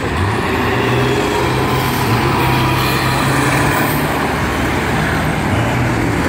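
Engines of several school buses racing around a figure-8 track, a loud, steady, overlapping engine hum.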